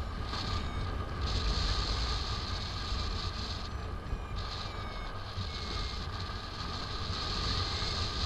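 Steady wind rushing and buffeting on the microphone of a paraglider pilot's harness-mounted camera in flight, with a low rumble and a higher hiss that comes and goes.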